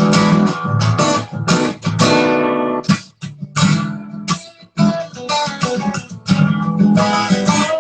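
Guitar strumming chords in a choppy rhythm, with short stops between strokes and no singing.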